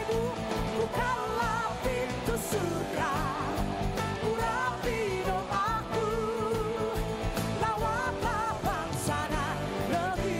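Live worship band playing a praise song: singers holding notes with vibrato over electric bass, guitar and drums with a steady beat.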